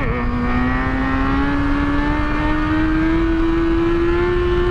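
Kawasaki ZX-6R inline-four engine pulling under throttle: it drops in pitch at the very start as it shifts up, then climbs slowly and steadily in the new gear. Wind rushes over the microphone.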